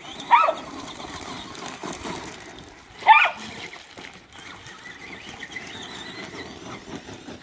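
Traxxas Stampede RC truck running fast across the yard, a steady hissing rush of motor and tires. Two short, high-pitched cries cut in, about half a second in and again about three seconds in.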